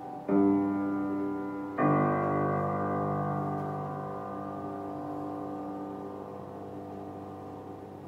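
Upright acoustic piano: a chord struck about a third of a second in, then a second, fuller chord about a second and a half later. Both are held and left to ring, slowly fading away.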